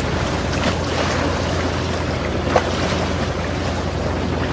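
Boat engine running steadily under the sound of the sea and wind, with one short sharp sound about halfway through.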